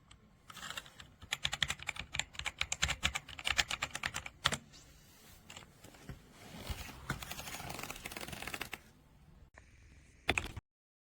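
Typing on an AJAZZ AK820 75% mechanical keyboard: a fast run of key clicks, a quieter spell, then a denser clatter of keystrokes. A short loud burst comes near the end before the sound cuts off suddenly.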